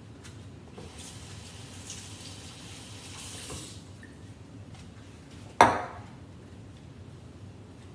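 A kitchen tap runs briefly for a few seconds, then a single sharp clink against a glass mixing bowl, the loudest sound, a little over halfway through.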